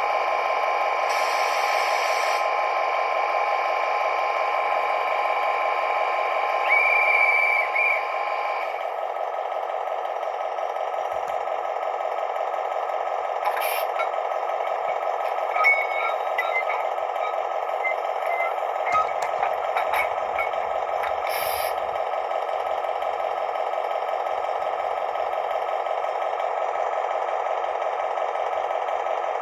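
Sound decoder playing the running diesel engine of a DB class 218 locomotive through a model train's small speaker, steady and thin, without bass. A brief, louder higher tone comes about seven seconds in, and scattered clicks and rattles come between roughly 13 and 22 seconds.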